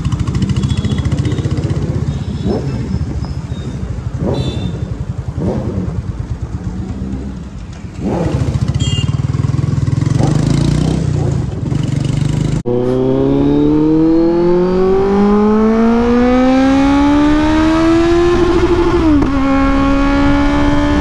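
Kawasaki Z900 inline-four with a Racefit aftermarket exhaust, heard from the rider's seat: running at low revs with a few short sharp blips for the first two-thirds. After an abrupt break, the engine climbs steadily in pitch for about six seconds under hard acceleration, then drops briefly at an upshift near the end.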